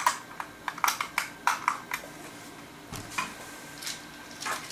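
Sharp plastic clicks of a toy RC transmitter's controls and switches being worked, about eight in quick irregular succession, then a few softer ones near the end. The mini truck doesn't respond because its on-off switch has been pushed off.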